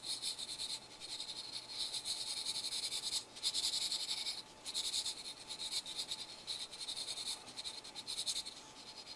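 Felt-tip marker rubbed on paper in rapid back-and-forth strokes, blending and laying in white, with a few brief pauses.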